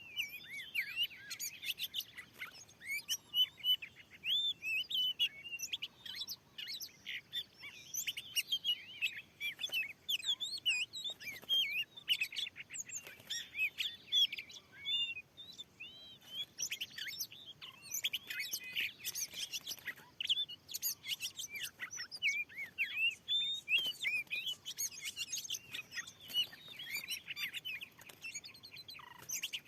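Oriental magpie-robins singing: a dense, unbroken run of varied whistles, chirps and quick rising and falling notes.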